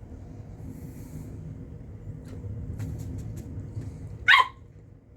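Corgi puppy gives one short, high-pitched bark about four seconds in, after a few light clicks.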